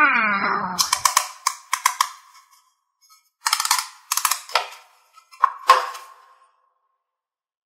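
Cartoon sound effects: a falling whistle-like glide, then a quick run of sharp clicks and two clusters of short pops.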